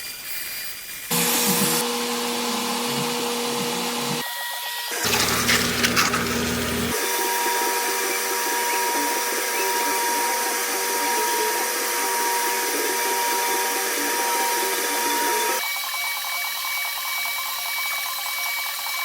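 Power tools working scrap steel pipe and angle in a series of abruptly changing takes: steady motor whine with metal grinding and cutting noise, one louder, rougher stretch around five to seven seconds in.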